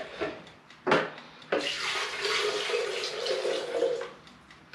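Thin mole sauce poured from a stainless saucepan into a Vitamix blender jar: a steady liquid pour for about two and a half seconds that then stops. It comes after a sharp knock about a second in.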